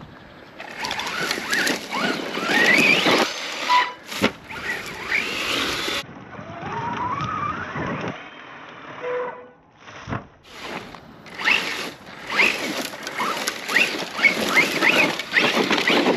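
Arrma Outcast 4S RC stunt truck driving hard through dry grass and dirt: its electric motor whines up and down in pitch with the throttle over the noise of tyres and chassis pushing through weeds and loose dirt, easing off briefly twice.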